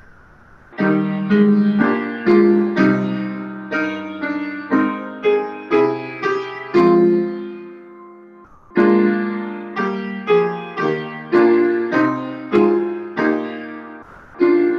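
Solo piano playing a slow piece in chords, each chord struck and left to fade, with short breaks between phrases about a second in and about eight and a half seconds in.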